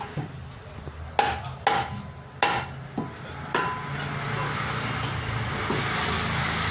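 A heavy cleaver chopping barracuda on a wooden chopping block: about six sharp chops in the first three and a half seconds, then a steady noisy background.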